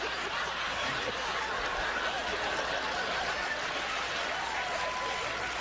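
Studio audience laughing steadily, a sustained wash of crowd laughter.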